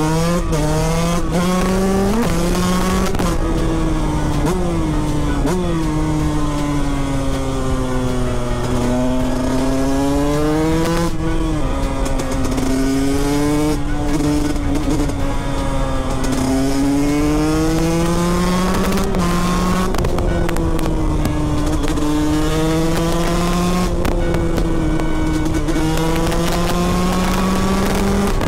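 KTM 125 SX two-stroke single-cylinder engine under way, its revs climbing under throttle and falling away off it, with several sudden drops in pitch at upshifts. Wind noise runs underneath.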